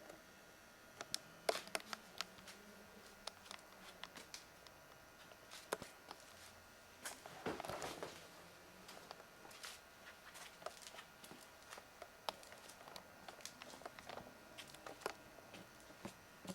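Faint scattered clicks and rustling, with a longer rustle about seven to eight seconds in.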